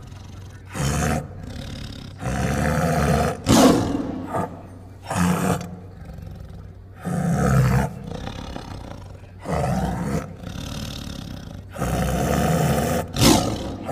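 Ring-tailed lemur making repeated growl-like calls: about eight separate bursts of half a second to a second each, with short quiet gaps between them.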